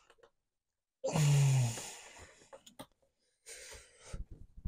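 A man sighs about a second in, his voice falling in pitch. Light clicks and knocks follow as model railway track pieces are handled and fitted together.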